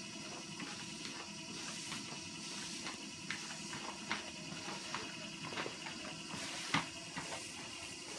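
A Siberian husky's claws clicking and tapping irregularly on a treadmill's belt as it paws and steps onto it, the sharpest tap about seven seconds in, over a steady background hum.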